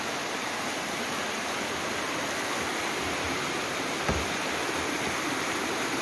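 Steady rushing of a rocky rainforest creek, an even hiss of water without a break. A single low thump comes about four seconds in.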